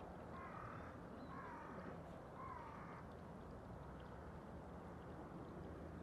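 A crow cawing three times, about a second apart, over a steady low background hum.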